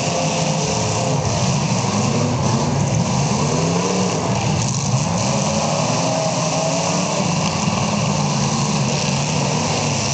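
Several demolition derby cars' engines running and revving together, their pitches rising and falling over one another.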